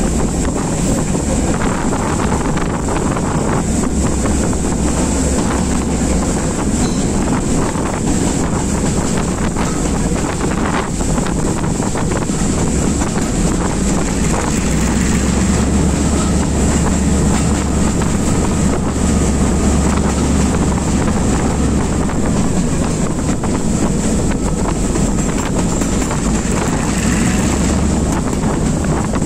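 Class M2c diesel-electric locomotive running under way, heard from its open side doorway: a steady low rumble of engine and running gear with heavy wind buffeting on the microphone.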